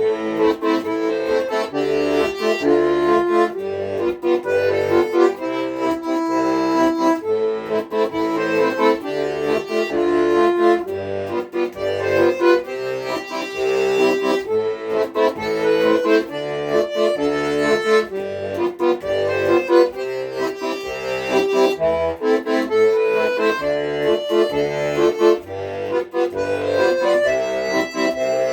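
Accordion playing an instrumental passage: a melody over a repeating accompaniment of low bass notes and chords.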